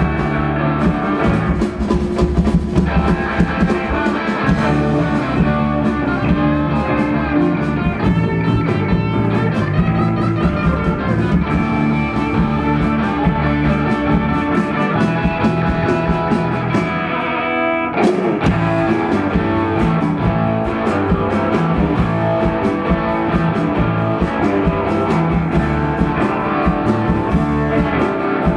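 Live surf rock band playing: twangy electric guitars over bass and a drum kit, amplified through the stage PA. About two-thirds of the way through, a quick falling sweep cuts across the music.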